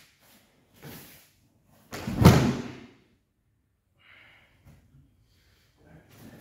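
Two judoka hitting the judo mat in a throw in which both go down: one heavy thud with a breakfall slap about two seconds in, with a few faint rustles before and after.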